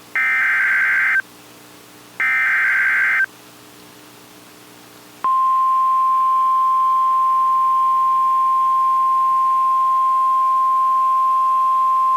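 Emergency Alert System SAME header data: two bursts of high electronic tones, about a second each and a second apart. About five seconds in, the steady single-pitched NOAA Weather Radio 1050 Hz warning alarm tone starts and holds. Together they signal the start of a new warning broadcast.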